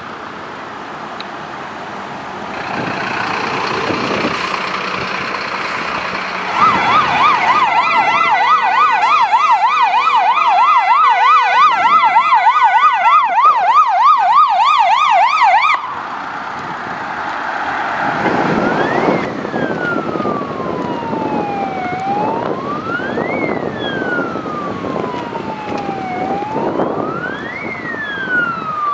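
Fire engine sirens as the trucks approach and pass. A rapid yelp siren warbles quickly up and down and cuts off suddenly about halfway through. A slow wail siren then rises and falls about every four seconds, over engine and tyre noise from the passing trucks.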